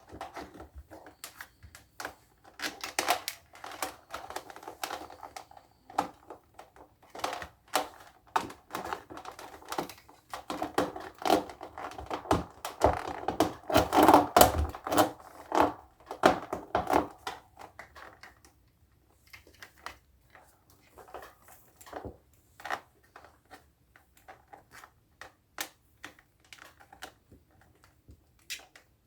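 Cables being handled and pushed into a cable organizer: a busy run of irregular clicks, knocks and rustles that thins out to scattered clicks about two-thirds of the way through.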